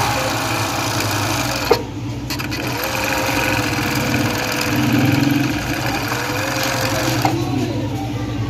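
Industrial pico machine stitching a picot edge along fabric at speed, a steady rapid whirr of needles and loopers, with one sharp click a little under two seconds in.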